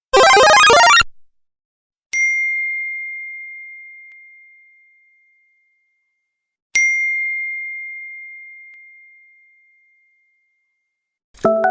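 Phone notification tones: a loud, dense many-toned tone cuts off about a second in. Then a single bell-like ding at one high pitch, sharp at the strike and slowly fading, sounds twice, about four and a half seconds apart. Near the end a lower, chord-like chime begins.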